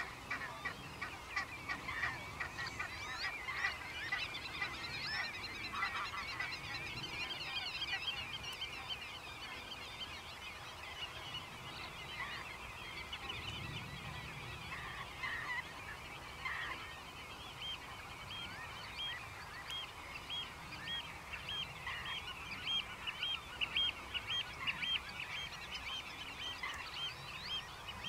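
Many birds calling at once in a dense, overlapping chorus of short calls. In the second half one call repeats evenly about twice a second.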